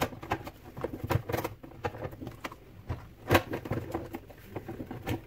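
Plastic clicks, scrapes and knocks as the side housing panel of a Saeco Xsmall espresso machine is worked loose and lifted off. The sharpest knock comes about three seconds in.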